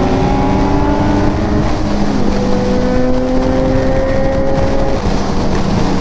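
Kawasaki Ninja 1000SX inline-four engine pulling at highway speed under wind rush. Its note climbs slowly, changes about two seconds in, then holds steady.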